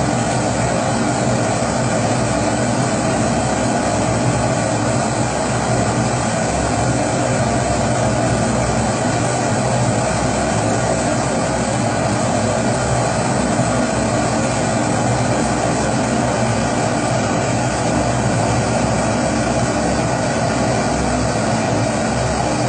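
Pressurised kerosene primus stove burning with a steady, unbroken rushing sound.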